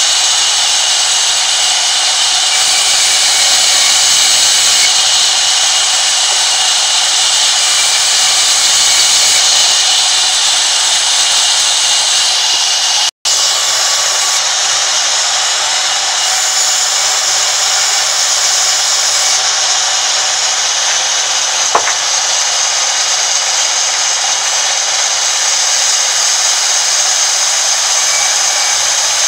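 Sawmill vertical band saw running and cutting lengthwise through a long timber plank, a loud steady hiss. The sound drops out for an instant about 13 seconds in, and there is one sharp click about 22 seconds in.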